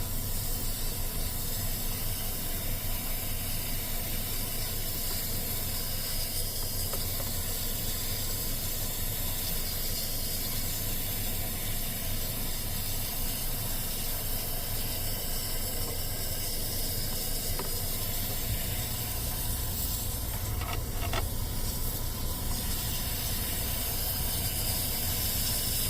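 Steady hiss of rushing air through the car's evaporator and air-conditioning ducts during cleaning, with a low rumble that grows stronger about eighteen seconds in.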